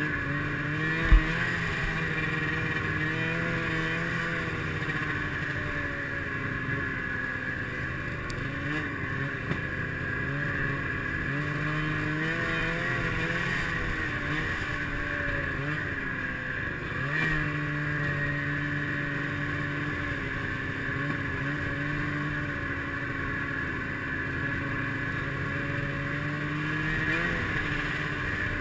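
Snowmobile engine running along a trail, its pitch rising and falling as the throttle changes, over a steady hiss. A single sharp thump about a second in.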